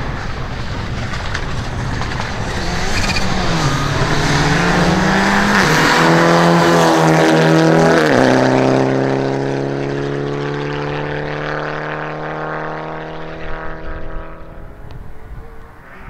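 Mitsubishi Lancer Evolution rally car's turbocharged four-cylinder engine accelerating hard, rising in pitch, loudest as it passes close about eight seconds in. Its pitch drops there, then it holds a steady note as it moves away and fades near the end.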